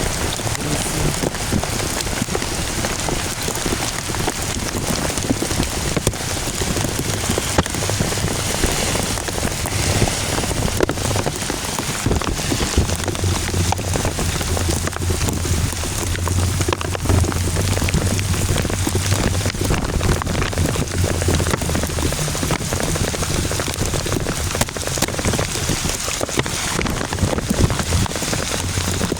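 Heavy storm rain pouring steadily, with dense drop hits. A low steady hum joins underneath for several seconds in the middle.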